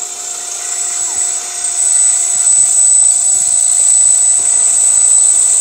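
A power tool running steadily with a high whine, growing louder over the first two seconds and then holding level.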